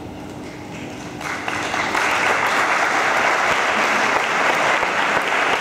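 Audience applauding: clapping breaks out about a second in, swells quickly and then holds steady.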